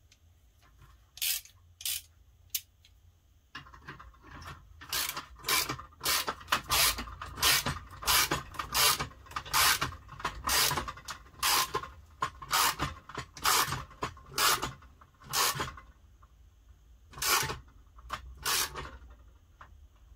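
Hand ratchet on an extension bar tightening a bolt, its pawl rasping on each back-swing at about two strokes a second through most of the middle, with a few slower strokes near the start and the end.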